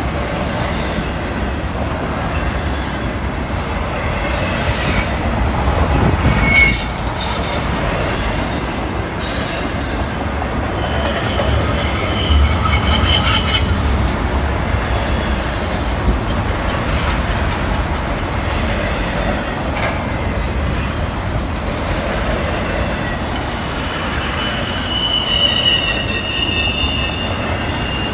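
Freight train cars rolling past with a steady rumble of wheels on rail. There is a sharp clank about six seconds in, and high-pitched wheel squeal rises twice, around the middle and again near the end.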